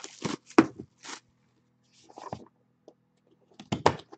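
Cardboard trading-card boxes being handled on a table: a run of short scrapes and taps, a quiet pause, then more quick scrapes near the end as a knife slits the seal on a box.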